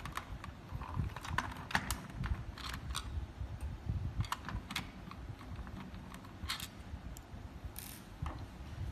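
Irregular light clicks and taps of hard plastic as a toy RC controller's casing is handled and taken apart, with small screws set down on a wooden tabletop.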